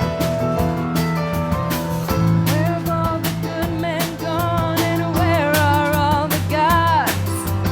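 Music with guitar and drums. A wavering melody line, sung or played, comes in about two and a half seconds in.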